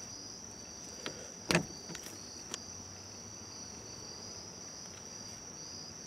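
Steady, high-pitched chirring of insects in the background. A sharp click about a second and a half in and a few fainter clicks around it come from a hand wire crimper working on a wire and eyelet.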